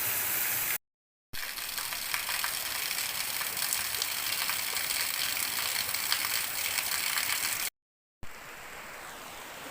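River water rushing, with the rapid clicking and whirring of a fishing reel being wound through the middle stretch. Two short breaks of dead silence fall about a second in and near the end, and after the second the water is quieter.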